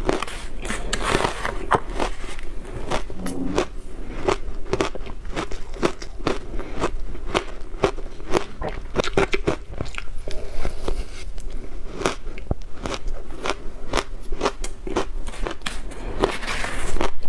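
Crunching of blender-shaved ice being bitten and chewed, a dense run of crackling clicks, with a spoon scooping through the ice in a plastic container, loudest about a second in and near the end.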